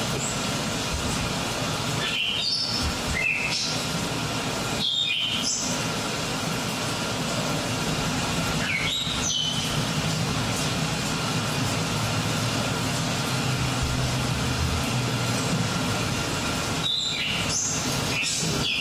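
Dance soundtrack played over theatre speakers: a steady rushing noise like wind or distant traffic, with a few short high chirps like bird calls and a low hum rising in the middle.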